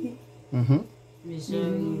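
Speech only: a short spoken word, then a long drawn-out word held on a steady pitch.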